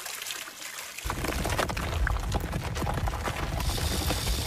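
Film sound effects of a giant snake moving over rocky ground: crackling of small stones and debris, joined about a second in by a deep, steady rumble with many knocks and crashes.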